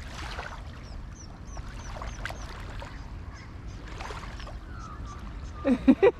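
Bird calls: small high chirps repeat over a low steady rumble, then a loud, rapid run of calls breaks in near the end.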